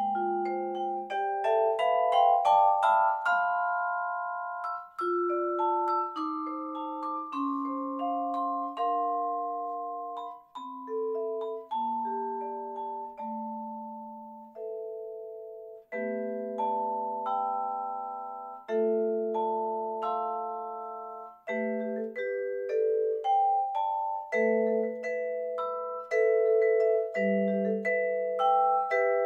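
Solo vibraphone played with four mallets: struck single notes and chords that ring on and overlap. A quick rising run opens, a slower descending line follows, and quicker repeated chords come near the end.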